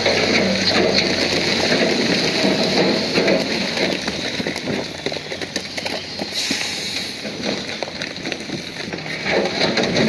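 Bulldozer at work: a dense, steady clatter of stones and steel, with the engine's low running sound fading about two seconds in and a hissing rush from about six to nine seconds in.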